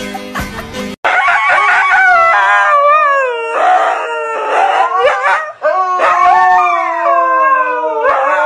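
Husky howling in long, wavering howls that rise and fall in pitch, starting after a cut about a second in.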